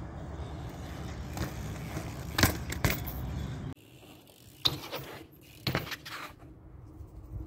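BMX bike on pavement: a steady rolling noise with a couple of sharp knocks and rattles from the bike. About four seconds in, the rolling noise drops away, leaving a quieter stretch with a few scattered clacks and knocks as the rider works the bike on concrete.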